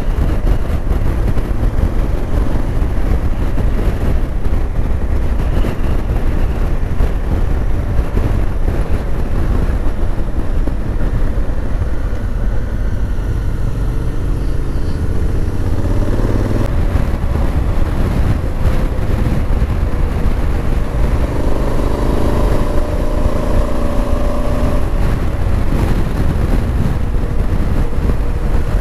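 Honda Africa Twin motorcycle riding at road speed: wind rushing over the microphone with the parallel-twin engine running underneath. About halfway through the engine note rises as the bike pulls through a bend, then holds steady.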